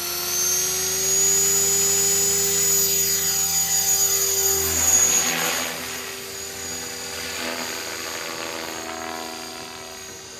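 Align T-Rex 500 ESP electric RC helicopter, a high motor-and-gear whine with rotor whoosh. Its pitch rises over the first couple of seconds as it spins up and lifts off. It is loudest about five seconds in, then grows fainter as the helicopter climbs away.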